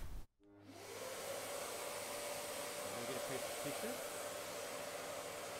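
Vacuum cleaner starting up, its motor pitch rising and settling within the first second, then running steadily, drawing air through the hose and the dust port of a track saw.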